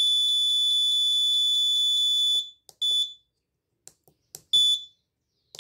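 Piezo buzzer giving a steady high-pitched beep for about two and a half seconds, then short beeps of the same pitch, with faint clicks of tactile push buttons between them.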